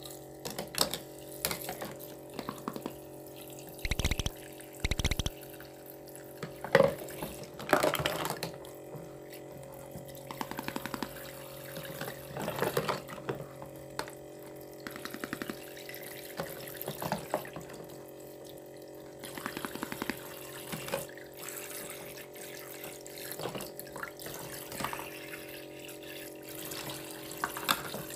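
Water running from a toy kitchen sink's faucet into its plastic basin over a steady hum, with small plastic dishes and bowls clattering, knocking and splashing as they are washed and stacked in a plastic dish rack.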